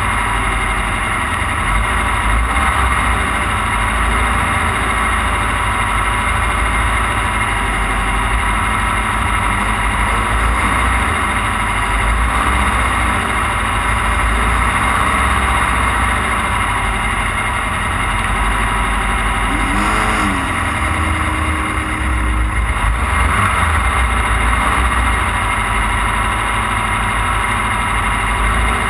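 Off-road race car's engine running steadily under way, with constant rumble and road noise over rough, wet ground.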